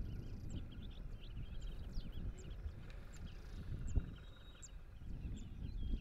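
Birds chirping with many short, high notes and a few falling whistles, over a low, uneven rumble. A single sharp knock about four seconds in.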